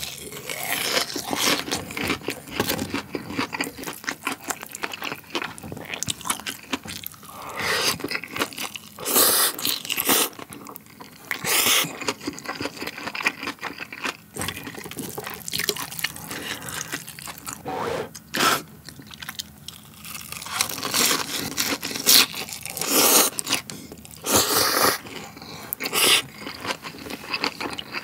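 Close-miked eating: crunching and chewing of a crispy breaded cheese pork cutlet, and slurping and chewing of cold spicy chewy noodles, with sharp crackles and short noisy bursts every few seconds.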